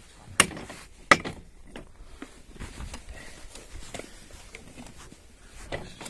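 Hammer strikes while a cow's hoof is being trimmed: two sharp knocks, about half a second and a second in, then a few fainter taps.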